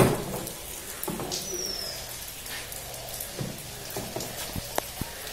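An umbrella being shut, with a brief loud flap of its canopy at the start. Rain falls in the background, and about a second and a half in a bird gives one short high whistle that slides down in pitch.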